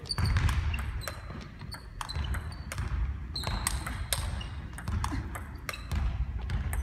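Table tennis rally: the celluloid ball clicking sharply off rubber-faced paddles in forehand chops and drives and bouncing on the table, a quick irregular run of clicks echoing in a large gym hall. Short high sneaker squeaks on the wooden floor come between the strokes.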